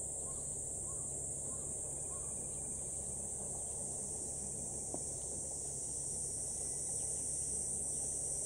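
Cicadas buzzing in one steady high-pitched drone over a low background rumble that grows slightly louder near the end.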